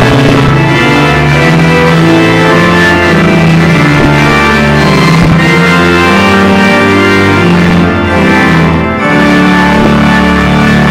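Organ playing a hymn in full, sustained chords that change every second or so.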